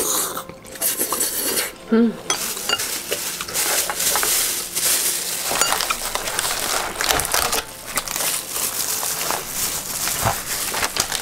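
A disposable plastic glove and clear plastic takeout container lids crinkling and clicking as they are handled, with light clinks of tableware.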